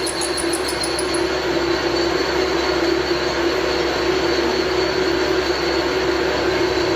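Lathe running with a steady whining screech over a constant hum, with a fast high ticking that fades out about a second in.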